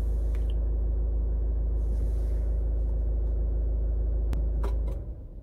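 Honda HR-V engine idling steadily, heard from inside the cabin, then switched off with the push-button start/stop: a click or two a little past four seconds in, and the engine dies away about five seconds in.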